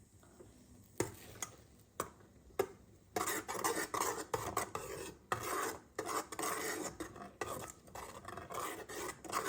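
A utensil knocking a few times against a pan, then scraping and stirring in it without a break for about six seconds.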